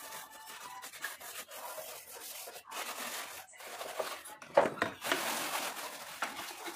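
Scrubbing of a soapy, wet clear plastic tray with a steel scrubber, an uneven rubbing and scraping that swells in patches. A single sharp knock sounds about four and a half seconds in, the loudest moment.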